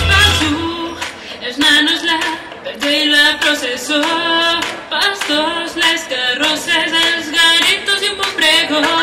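Pop song playing for a dance routine: about half a second in, the bass and drums drop out, leaving female singing over handclaps.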